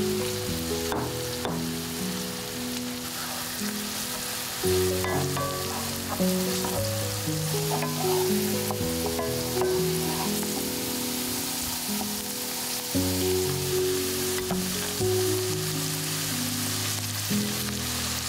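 Sliced onions sizzling as they fry in a pan, stirred with a wooden spatula, over background music with slow, sustained low notes.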